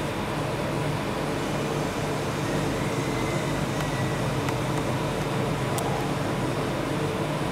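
A steady mechanical hum over even background noise, unchanging throughout.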